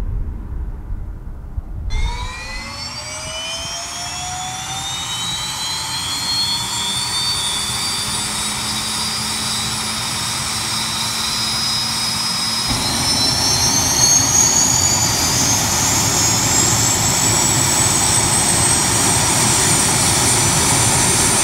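Pilatus PC-12 NG's Pratt & Whitney Canada PT6A-67P turboprop starting. After about two seconds of low outdoor rumble, a turbine whine sets in and climbs steadily in pitch. Around thirteen seconds in, a fuller rushing engine noise joins and grows louder, then holds steady.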